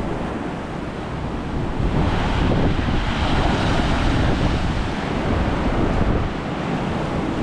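Ocean waves surging into a hole in the rock shelf and washing back out, the surf noise swelling about two seconds in and easing near the end, with wind buffeting the microphone.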